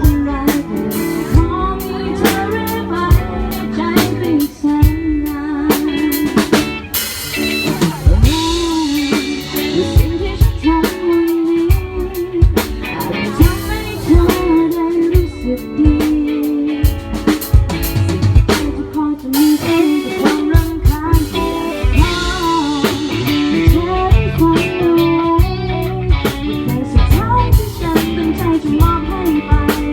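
A live band playing a song with a drum kit and guitar, and a wavering melody line over them. There are cymbal crashes about seven and nineteen seconds in.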